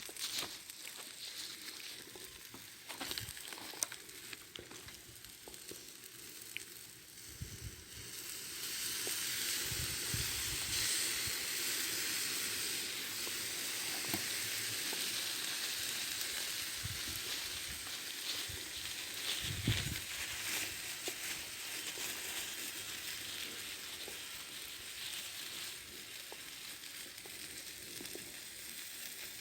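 Food sizzling as it fries in a hot pan. It starts suddenly about eight seconds in, after some clicks and rustling, and slowly fades.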